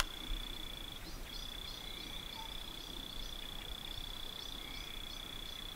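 Crickets: one steady, high, unbroken trill with a run of short, quick chirps repeating over it.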